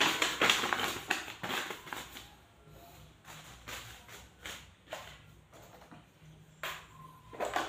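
A sheet of paper crinkling and rustling as it is handled and folded, densest in the first two seconds. Then scattered small handling clicks, with another short rustle near the end.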